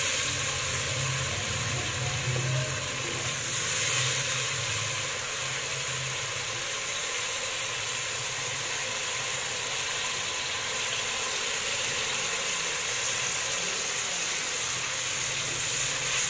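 Onions, ginger-garlic paste and tomatoes frying in oil in an aluminium pot, a steady sizzle, as the masala is stirred with a wooden spoon. A low hum sits under the sizzle for the first few seconds.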